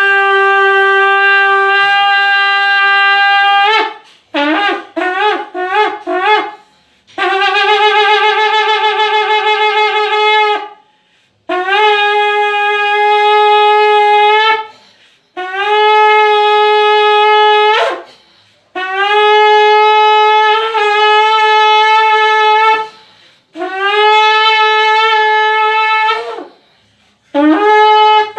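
Long spiralled antelope-horn shofar blown in a series of long, steady blasts, each sliding up into its note, separated by short breaths. About four seconds in, the long blasts give way to a run of about five short broken notes before the long blasts resume.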